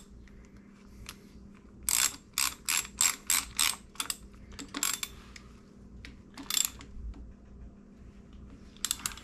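Hand socket ratchet clicking as the bolt on a motorcycle's shift lever is tightened. About two seconds in comes a quick run of about seven ratchet strokes, a few per second, followed by a few single strokes further apart.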